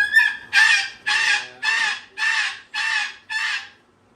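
A parrot squawking: a run of about seven loud, harsh calls, roughly two a second, ending shortly before the end.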